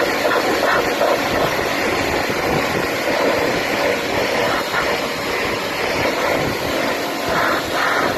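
Pressure washer jet rinsing snow foam off car paintwork: a loud, steady rush of spraying water, shifting slightly as the jet moves over the panels.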